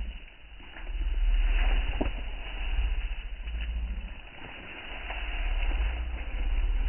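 Wind buffeting the microphone outdoors: a low rumble that rises and falls in gusts over a steady hiss, with a few faint clicks.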